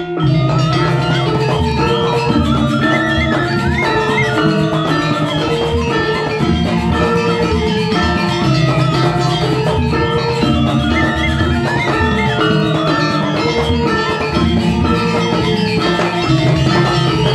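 Balinese gong kebyar gamelan playing: dense, fast runs of bronze metallophone notes over steady kendang drumming, with a bamboo suling flute line gliding above.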